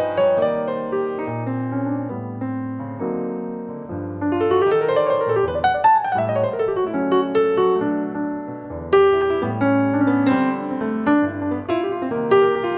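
Jazz piano playing an instrumental chorus: low bass notes and chords under a right-hand melody, with a quick run that climbs and falls back about five seconds in.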